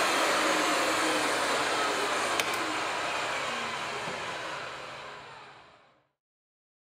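RIDGID 535 pipe threader's universal electric motor running steadily, with a sharp metallic click about two and a half seconds in. The sound then fades away to nothing.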